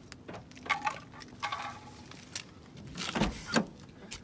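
Clicks and knocks of a 1992 Toyota MR2's driver's door and its latch being worked as the door is opened, with two heavier thumps about three seconds in.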